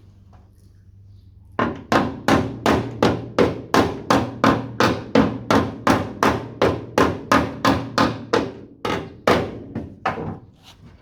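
Repeated tapping on the Mk2 Ford Escort's steel rear quarter panel, about three blows a second, working a low spot in the dent back up to shape. The blows start about a second and a half in and die away near the end.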